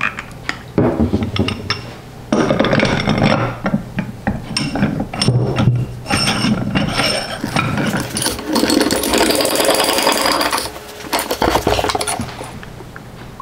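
Steel clinks, knocks and scraping as a cast-iron bench vise's freshly oiled screw and sliding handle are fitted into the vise and turned, the handle bar clanking in its hole.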